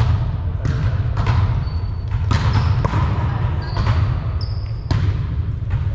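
A volleyball game on a hardwood gym floor: several sharp slaps of the ball being played and landing, echoing in the hall, with short high squeaks of sneakers on the floor. A steady low rumble runs underneath.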